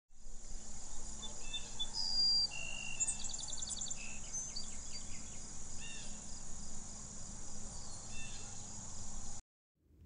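Outdoor field ambience: insects droning steadily at a high pitch, with scattered short bird chirps and whistles and a quick trill about three seconds in. It all cuts off abruptly just before the end.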